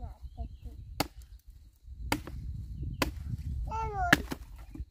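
A hand blade chopping into a firewood log, four sharp strikes about a second apart, the last one the loudest. A small child's voice comes in near the end.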